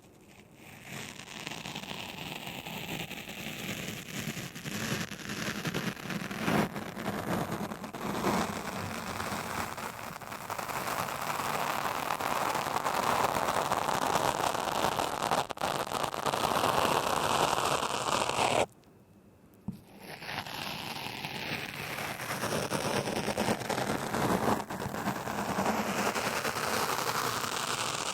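A razor shaving stubble: a continuous crackling scrape, broken by a pause of about a second roughly two-thirds of the way through.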